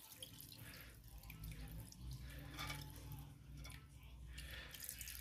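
Faint dripping and trickling of liquid as coconut milk is poured into the curry pot, a few soft drips over a low steady hum.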